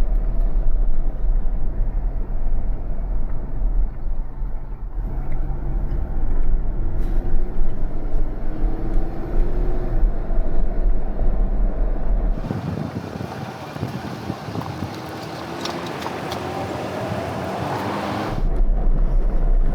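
Motor vehicle driving: a steady low road-and-engine rumble. About twelve seconds in it switches abruptly to a thinner, hissier sound with a faint rising engine note. The low rumble returns near the end.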